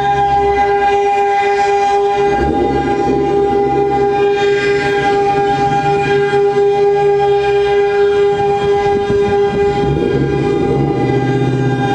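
A loud, steady horn-like tone with many overtones, held without a break.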